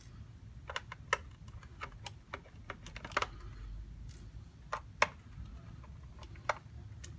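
Irregular small, sharp clicks and taps of a screwdriver and hard plastic as the screws of a Dell laptop's back cover are taken out.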